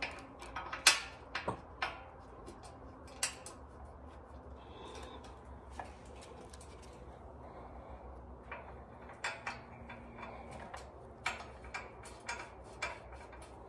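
Scattered metallic clinks and clicks of engine-mount bolts and hardware being handled and fitted into the mounts. There are a few sharper clinks in the first two seconds and another cluster in the second half, with a quieter stretch between.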